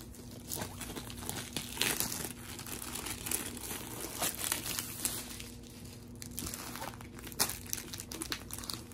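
Plastic packaging and a rolled diamond-painting canvas crinkling and rustling as they are handled and unrolled, with irregular crackles, the loudest about two seconds in and again near the end.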